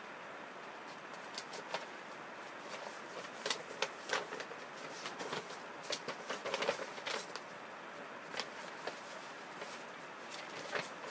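Paper instruction leaflets rustling and crackling as their pages are handled and turned. The rustles are short and irregular, most of them in the middle of the stretch, over a steady faint hiss.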